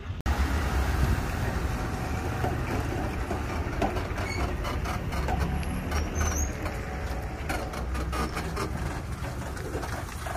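Steady low rumble with scattered short clicks.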